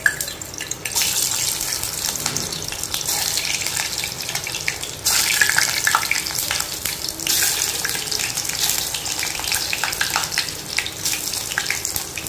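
Frozen chilli garlic potato bites sizzling in hot oil in a steel kadhai, a dense crackling hiss. It swells suddenly several times as more frozen pieces are dropped in one by one.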